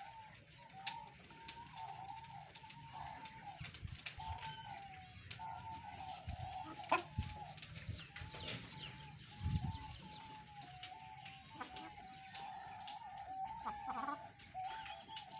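Hens calling in a near-continuous run of short, wavering notes, with scattered sharp clicks and a low thump about nine and a half seconds in.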